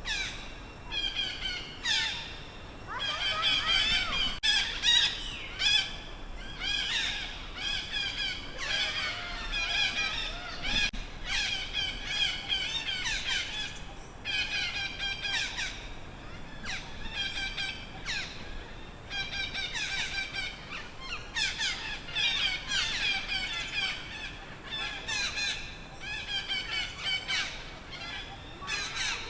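Baby macaque screaming in fear as its mother drags it backward: high-pitched, wavering squeals repeated one after another with short breaks.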